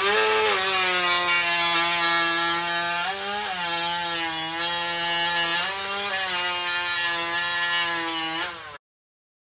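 Vintage two-stroke chainsaw running at high revs while cutting wood, its pitch sagging and recovering a couple of times as the chain loads up in the cut. The sound cuts off suddenly near the end.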